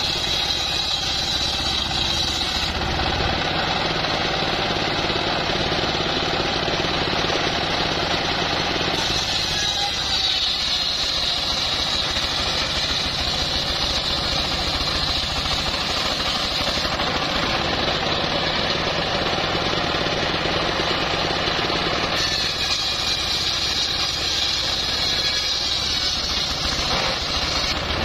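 Homemade circular sawmill ripping a teak log: the stationary engine runs steadily under the continuous noise of the large circular blade cutting through the wood. The cutting noise changes a few times as the log is fed through the blade.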